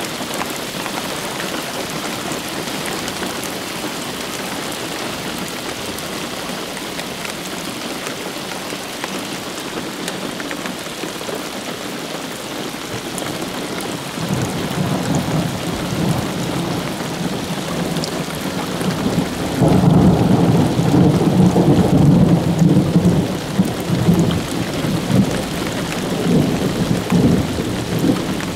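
Steady rain falling during a thunderstorm, with thunder rumbling in about halfway through. The thunder is loudest a few seconds later and is still rolling near the end.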